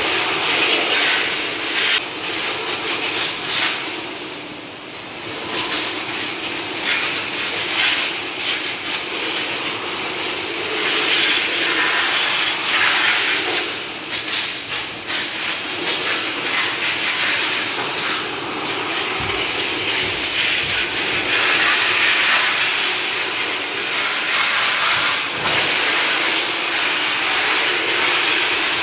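High-pressure water jet hissing as it sprays down poultry pan feeders and water lines. The hiss swells and fades as the spray is swept across them, dipping briefly a few times.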